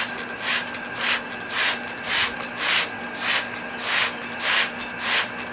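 Plastic trigger spray bottle being squeezed over and over, misting water onto a potted plant: about ten short hissing squirts, roughly two a second.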